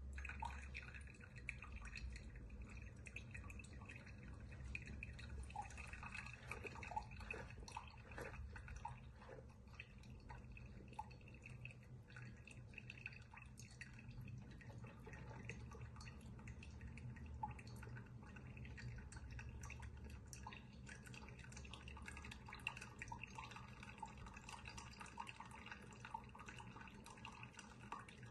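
Single-serve pod coffee maker brewing: a low steady hum under many small, irregular drips of liquid.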